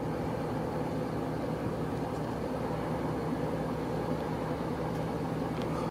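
Steady engine and road noise of a vehicle driving along a highway: an even low hum with a held tone. It cuts off abruptly at the end.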